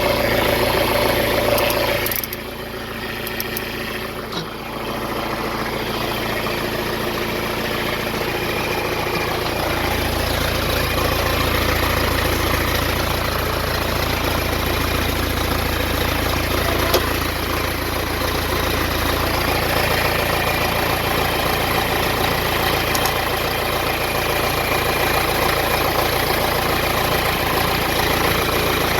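John Deere 410D backhoe's diesel engine idling steadily; its low rumble grows fuller about ten seconds in.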